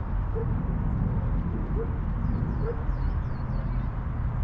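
Steady low rumble of wind buffeting the microphone, with a few faint high chirps between two and three seconds in.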